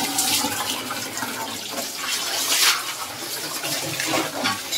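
Water running steadily from a low wall tap, splashing onto a vessel held beneath it.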